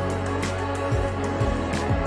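Background music with a steady low beat and sustained instrumental tones.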